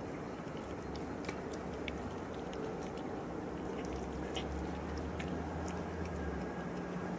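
Cat eating wet food from a plastic tub: scattered small wet chewing and lapping clicks. A steady low rumble underneath swells for a couple of seconds past the middle.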